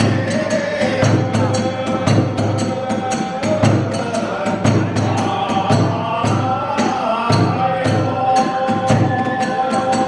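Kagura hayashi accompaniment: drums and small hand cymbals striking a fast, driving rhythm of several beats a second, under a sustained, held melody line.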